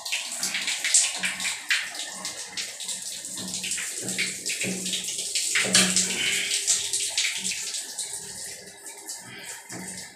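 Water pouring and splashing from a wall mixer tap onto a tiled floor while its spindle is shaken loose with a tool, with irregular metal clicks and knocks. The flow eases somewhat near the end.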